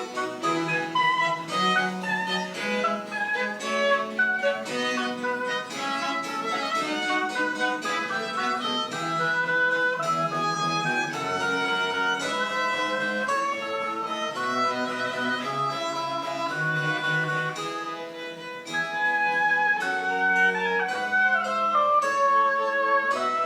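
Baroque chamber music played live: a bowed string melody over plucked string accompaniment, in the French Baroque style. It softens briefly about three-quarters of the way through, then comes back louder.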